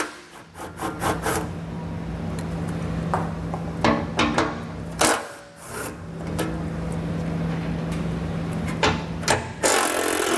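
Cordless impact driver with a 13 mm socket on an extension, spinning heat-shield bolts out of a pickup's underbody. It runs steadily in two long runs with a short break about five seconds in, with scattered clicks of metal and a louder burst of noise near the end.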